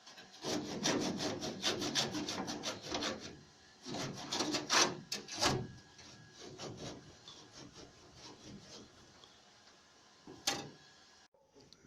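A hand tool rasping at metal in quick, even strokes, about seven a second, in two runs, followed by a few fainter strokes and one sharp click near the end.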